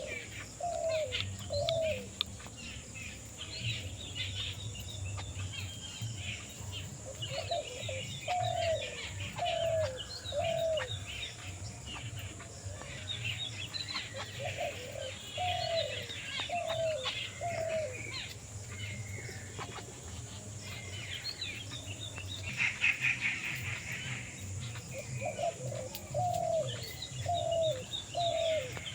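Wild birds calling. One bird repeats a low phrase of three or four short falling notes every several seconds, over continual high chirping and twittering from other birds, with a denser burst of chatter near the end.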